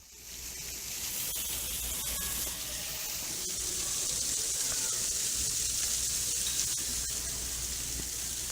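Steady rush of running water, fading in at the start and cutting off at the end.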